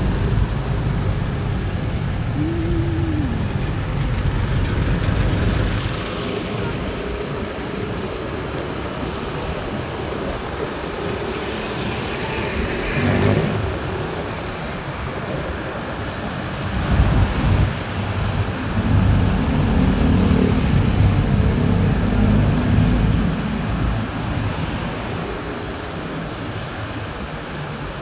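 City road traffic heard from a vehicle moving in traffic: engines running and cars passing. One vehicle sweeps past about halfway through, and engine rumble grows louder for several seconds after that.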